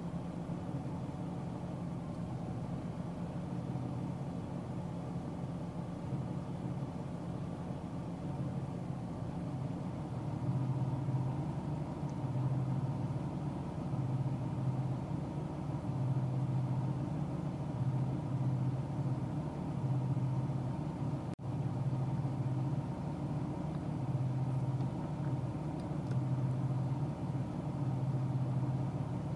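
A car driving at highway speed, its steady engine and road noise heard from inside the cabin, with a split-second break in the sound about two-thirds of the way through.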